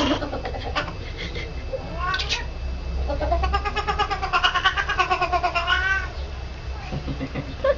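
Domestic cat making rapid, stuttering 'machine gun' calls: each meow or yowl is chopped into quick pulses. A short call comes at the start and a brief rising one about two seconds in, then a long call that wavers up and down in pitch for about three seconds.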